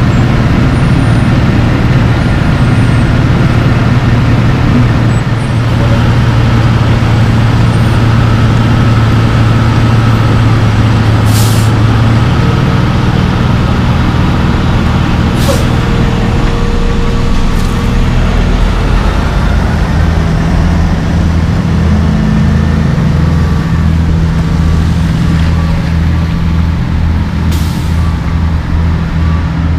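Heavy diesel dump-truck engines running close by, the engine note shifting a couple of times, with about four short hisses of air brakes.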